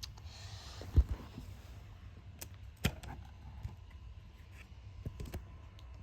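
Scattered handling knocks and clicks: a dull thump about a second in, a sharp click near three seconds and a few light clicks around five seconds, with a brief rustle at the start.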